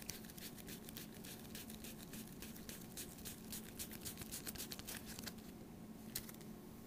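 Faint rustling and quick irregular clicking of hands handling playing cards close to the microphone, over a steady low hum.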